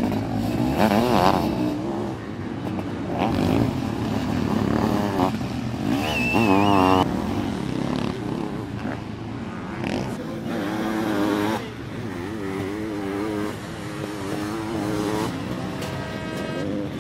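Sidecar motocross outfits racing past on a dirt track, their engines revving hard with the pitch repeatedly rising and falling as one outfit after another goes by.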